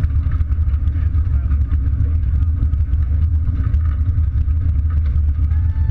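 Steady low rumble of wind buffeting the camera microphone, with faint crowd chatter behind it.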